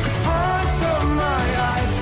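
Background pop music with a steady low beat and bass, and a melody line gliding up and down over it.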